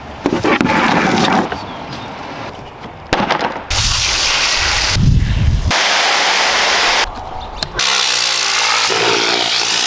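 A series of detailing sounds: a burst of rustling as the rubber floor mats are pulled out, then a stretch of hissing spray over the mats, and from about eight seconds in a steady loud hiss of compressed air from a blow gun blasting dirt out of the floor carpet.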